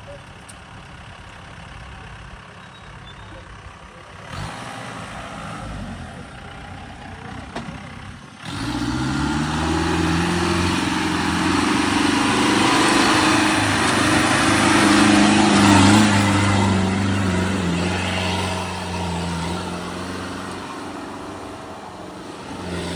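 Off-road vehicle's engine running low for the first eight seconds, then revved hard with the pitch sweeping up, held at high revs and easing off somewhat near the end.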